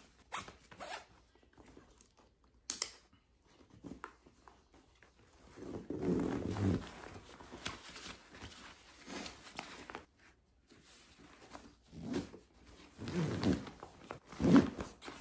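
Hiking backpack being closed up by hand: nylon fabric rustling and short rasping pulls in several spells, the loudest about six seconds in and again near the end. There is one sharp click about three seconds in.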